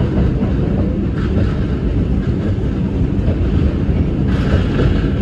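New York City subway train heard from inside the car, running on elevated track: a steady heavy rumble of wheels on the rails, with a brief rise of hiss about a second in and again near the end.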